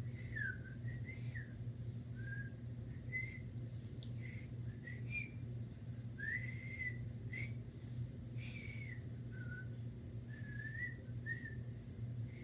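A child whistling an irregular tune of short notes that slide up and down, with a low steady hum underneath and a few soft rustles.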